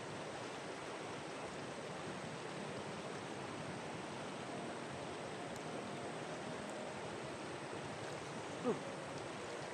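Shallow river running over stones: a steady rushing of water. Near the end comes a brief sound that drops quickly in pitch.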